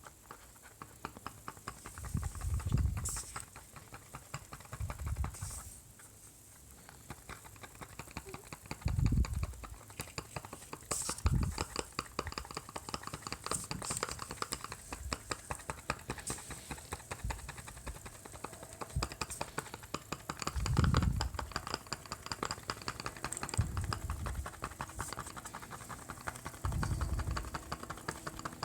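Fingertips pressing a new foam surround onto a speaker cone's glued edge: fast light tapping clicks with a few dull thumps as the speaker is handled on the bench.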